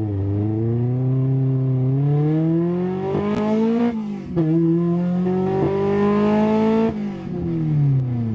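Honda Civic SiR's B16 DOHC VTEC four-cylinder engine under hard acceleration, heard from inside the cabin. It revs up to around 6,000 rpm, where VTEC engages. An upshift about four seconds in drops the revs, they climb again, and they fall as the driver lifts off near the end.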